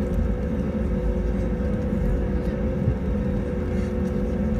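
Cabin noise of an Airbus A320neo at takeoff thrust: its Pratt & Whitney PW1100G geared turbofans run with a steady hum of several held tones over a deep, even rumble.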